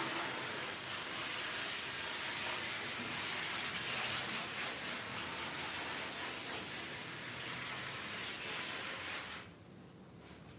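Hand-held gas-fired heater hissing steadily as it is passed over discharge-printed shirts to develop the discharge ink. The hiss drops away near the end.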